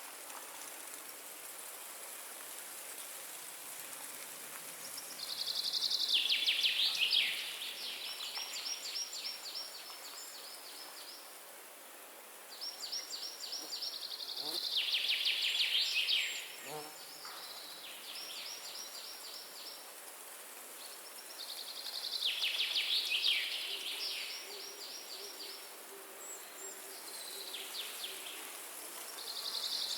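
Forest ambience: a songbird repeating a rapid, descending trill about every eight seconds, over a steady hiss of wind in the trees.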